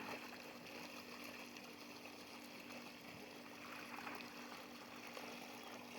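Intex pool pump running with a faint steady hum, with water trickling and flowing.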